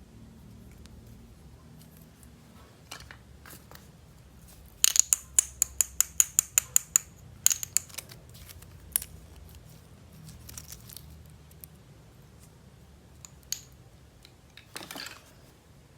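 Plastic toys being handled: a quick run of about a dozen sharp clicks about five seconds in, scattered single clicks, and a short rustle near the end.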